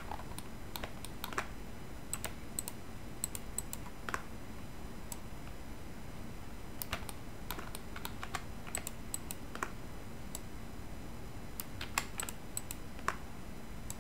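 Scattered keystrokes and clicks on a computer keyboard and mouse, irregular and a few at a time, over a faint steady hum.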